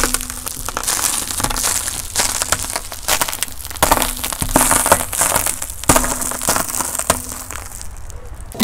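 Car tyre rolling over a row of wrapped hard-candy lollipops on asphalt, the candies cracking and crunching one after another under the tread in a run of sharp cracks.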